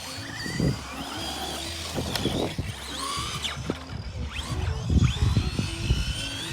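Electric motor of a Traxxas RC car whining, its pitch rising and falling as the throttle is worked, with thumps as the car bangs over hard ground, more of them and louder in the second half.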